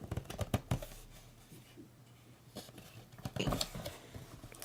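Hands working the Kindle Touch out of its cardboard packaging: scattered taps, scrapes and rustles, a cluster in the first second and another about three and a half seconds in.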